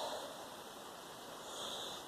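A person doing a breathing exercise: a forceful breath right at the start and a softer one near the end.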